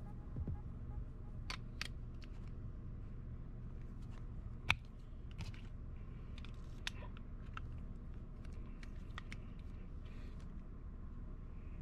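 Scattered small clicks and taps from a zinc-alloy pod mod being handled and its 18650 battery fitted in the battery bay, with one sharp click about halfway through. A steady low hum runs underneath.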